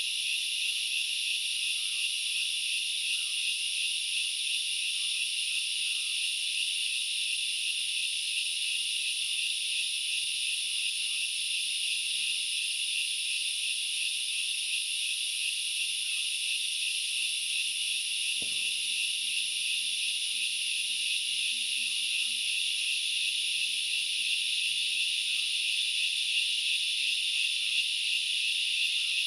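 Dense forest insect chorus, a steady high-pitched shrill that does not let up.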